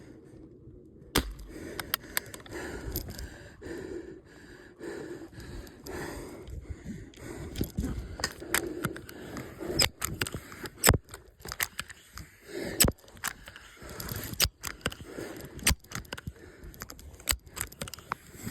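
Irregular clicks, knocks and scraping of close handling noise, with a dull rustle between them.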